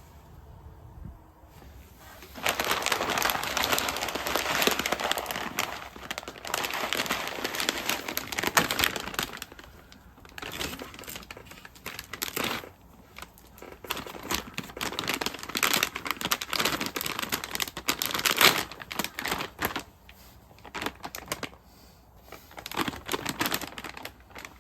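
Crinkling and rustling in irregular bursts, starting about two seconds in and coming and going in uneven spells.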